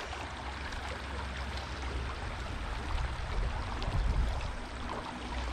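Small shallow creek running over a gravel bed: a steady, even rush of water, with a low rumble underneath.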